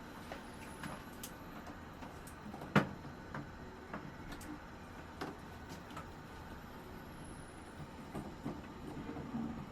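Scattered light clicks and taps of tools and fittings being handled while a water heater is taken off the wall, with one sharp knock about three seconds in.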